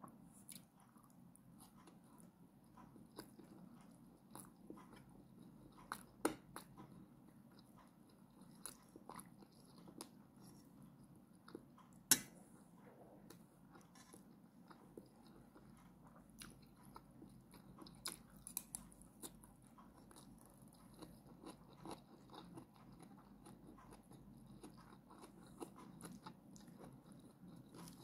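Quiet close-up chewing of a mouthful of sautéed bitter melon with egg and rice, with soft wet mouth clicks scattered throughout and two sharper ticks about six and twelve seconds in.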